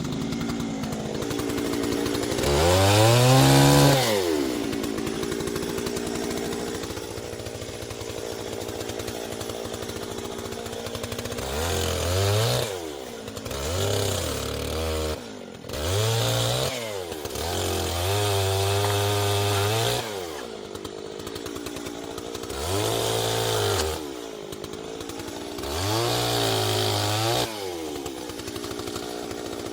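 Chainsaw engine starting up abruptly, then revved high once and left to idle. It is then blipped up and down on the throttle again and again, with one rev held for about two seconds.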